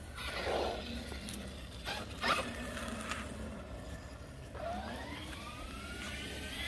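Traxxas Kraton RC car's electric motor whining, rising in pitch as the car speeds up, starting about two-thirds of the way in. Two short knocks come earlier, about two seconds in.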